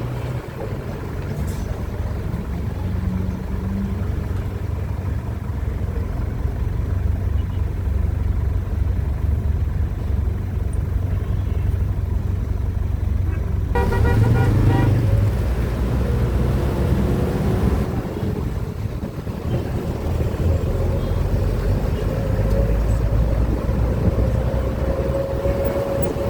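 City street traffic with a steady low rumble. A car horn honks briefly about halfway through, and a slowly rising engine tone is heard near the end.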